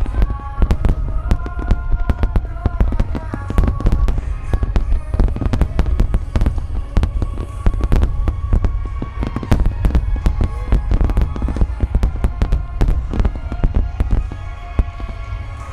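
Continuous barrage of aerial firework shells bursting, many sharp reports a second over a constant deep rumble, from a long line of gold shells fired together. Music with held notes plays underneath.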